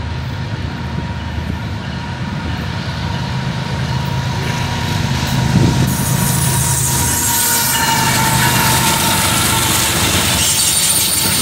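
Diesel freight train passing close by. The locomotive's rumble grows louder over the first half as it comes past, then freight cars roll by with a thin, steady wheel squeal.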